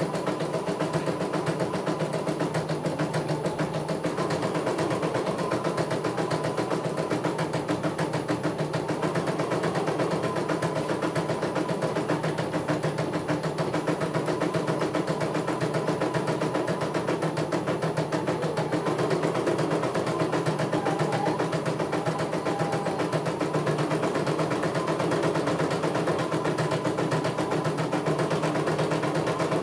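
CNY E900 computerized embroidery machine stitching a design: the needle running at a fast, even rate while the embroidery unit moves the hoop, a steady mechanical whir and chatter.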